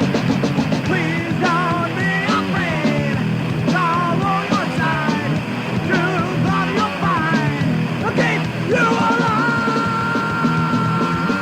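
Thrash-metal/punk band recording with drums and bass under a high lead line that bends and wavers in pitch, then holds one long, slowly falling note from about nine seconds in.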